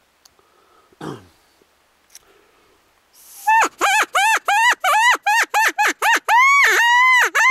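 Predator call sounding a rabbit-in-distress cry: after near quiet, a rapid run of short, high squealing wails, about four a second, starts about three seconds in, the last few drawn out and wavering.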